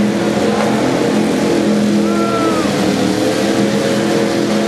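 Engines of several demolition derby cars running and revving together in a loud, steady drone. A short high tone rises and falls about two seconds in.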